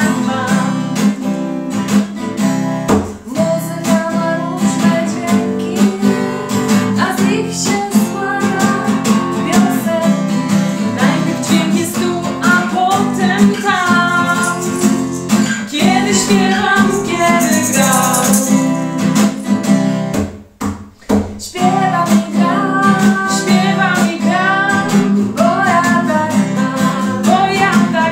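Acoustic guitar strummed as accompaniment to two women singing a song, with a brief pause in the music about twenty seconds in.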